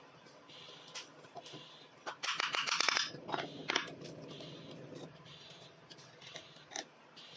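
Wooden tools handled on a wooden workbench: a burst of rattling and clatter about two seconds in as the plane body is put down and a chisel picked up, then light clicks and scrapes as the chisel is worked into the wooden plane's blade slot.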